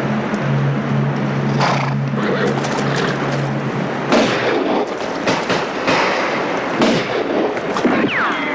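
Gunshots from revolvers and rifles over the steady rush of a waterfall. One shot comes about a second and a half in, then a rapid, uneven string of shots starts about four seconds in.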